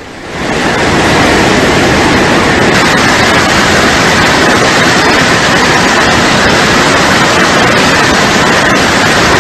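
Floodwater of a swollen, muddy river rushing past in a loud, steady roar of water that fades up during the first second.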